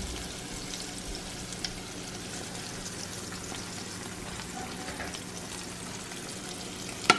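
Flour-dredged fish fillet strips frying in oil in a skillet, a steady sizzle with a few faint ticks. A sharp knock near the end.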